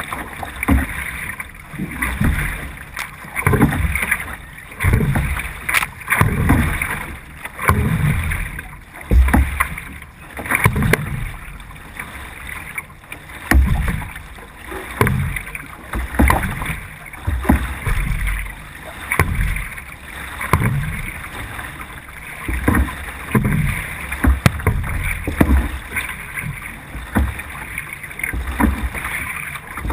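C1 sprint canoe paddled hard, heard from a camera on the bow: water rushing along the hull, with a low surge about once a second at each paddle stroke.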